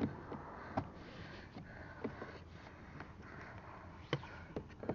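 Faint, sparse clicks of a knife tip prying at the plastic mirror adjustment knob, with soft sniffing breaths between them.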